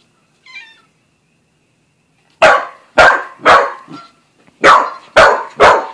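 Australian shepherd/corgi mix dog barking at a cat: six sharp barks in two quick runs of three, the first run about two and a half seconds in and the second near the end.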